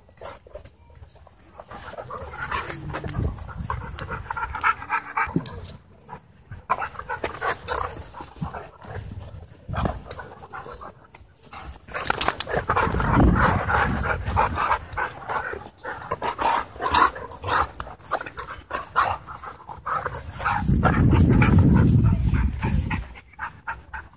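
Dogs panting hard and fast in rough play, louder from about halfway through. A loud low rumble lasts a couple of seconds near the end.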